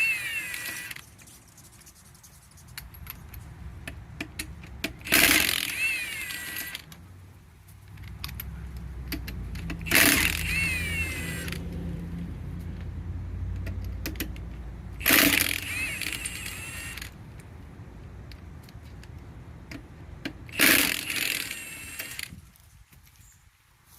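Impact wrench spinning the lug nuts on a car wheel in short bursts, one nut after another about every five seconds, each burst a rattling hammer with a motor whine that bends in pitch. A low rumble runs underneath for several seconds in the middle.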